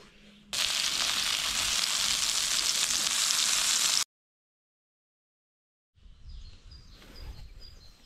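Sliced sausages sizzling loudly in a frying pan, starting suddenly about half a second in and cutting off abruptly around four seconds. After about two seconds of dead silence, quieter outdoor ambience returns with a few short bird chirps.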